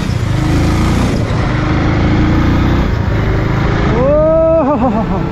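Motorcycle engine running steadily under the rider, with wind and road noise. About four seconds in, a short pitched sound rises and then wavers.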